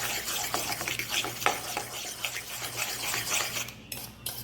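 Fork beating eggs with chopped cabbage in a bowl: rapid, continuous scraping and clicking as the mixture is whisked until frothy.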